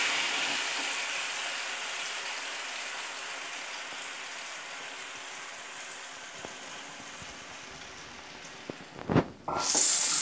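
Blended ripe jackfruit pulp sizzling in hot ghee in a frying pan, the hiss slowly dying down. About nine seconds in there is a thump, and just after it the sizzling comes back loud.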